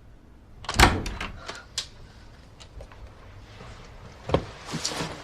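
A door being opened and shut: a sharp thud with latch clicks about a second in, then another knock and a short run of clicks near the end.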